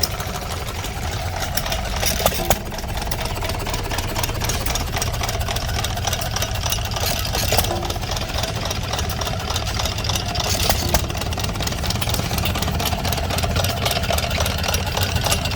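Hit-and-miss stationary engines running steadily, with a few sharp knocks now and then.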